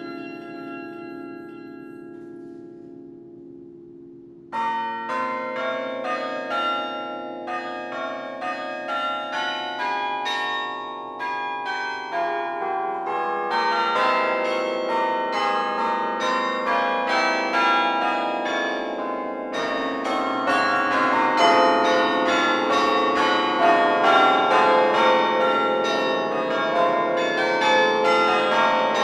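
Carillon bells played from the baton keyboard. A ringing chord dies away at first, then a fast run of struck bell notes starts suddenly about four and a half seconds in and grows louder and fuller from about twenty seconds in.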